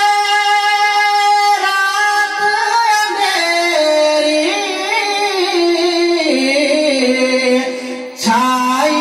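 A man singing a naat, drawing out long held notes that slowly wander up and down in pitch, with a short break for breath near the end.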